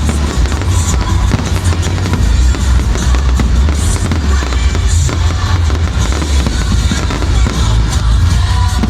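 Loud music with a heavy bass beat, with fireworks bursting repeatedly over it.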